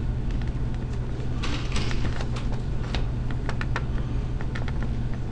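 A pen writing on paper: a quick run of short scratches and taps from the strokes, starting about a second and a half in, over a steady low hum.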